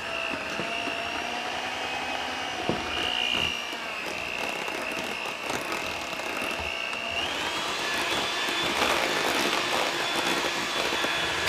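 Electric hand mixer running as its beaters whip mashed potatoes in a stainless steel pot, with a few knocks of the beaters against the pot. Its steady whine steps up in pitch about seven seconds in.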